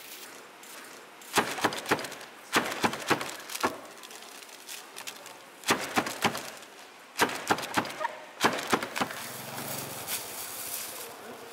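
Quick runs of sharp chopping knocks on a wooden board, five runs of several strokes each: a metal blade cutter slicing stacks of roasted laver (gim) sheets.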